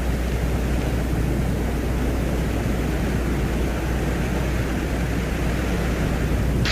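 A space recording converted into sound: a steady rushing noise with a constant low hum beneath it.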